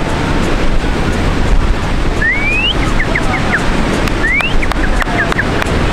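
Ocean surf washing in steadily, with wind blowing on the microphone. About two and four seconds in, a rising whistle sounds, each followed by a few short chirps.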